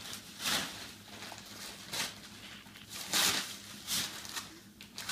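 Gift wrapping paper rustling and crinkling in several short swishes as presents are unwrapped and handled.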